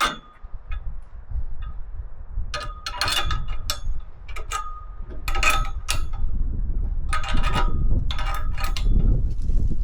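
Metal clinks and ticks in several short clusters, from a wrench working a nut on a steel bolt and bracket as it is tightened, over a steady low rumble.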